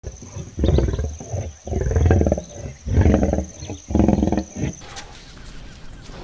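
Tiger roaring in four loud calls, each under a second long, about one a second.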